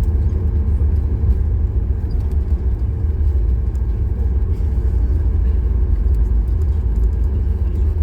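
Steady low rumble inside the cabin of a Boeing 737 MAX 8 airliner rolling on the runway just after landing.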